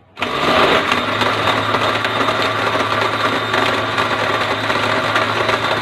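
Countertop electric blender switched on just after the start, its motor spinning up and then running steadily, blending ice cubes into mango and peach juice.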